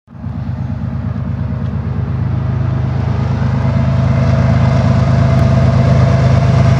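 Approaching diesel-electric freight locomotives, GE ES44DC, ES44C4 and Dash-9 units, running with a deep, steady, fluttering rumble that grows gradually louder as the train nears.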